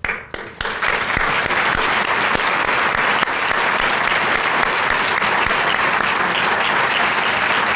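A roomful of people applauding, rising within the first second and then holding steady.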